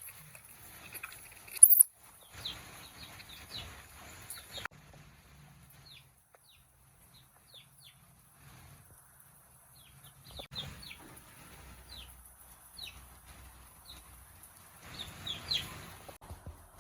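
Short, high-pitched falling chirps or squeaks from a small animal, coming in clusters of several at a time with quiet gaps between.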